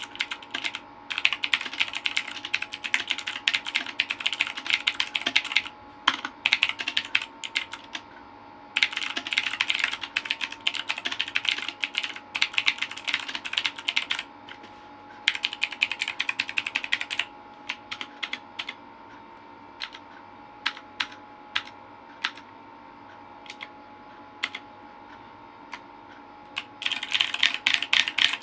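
Vortexseries VX5 mechanical keyboard with Outemu blue clicky switches being typed on in fast runs of keystrokes. The runs are broken by short pauses, and there are slower, separate key presses in the later middle part.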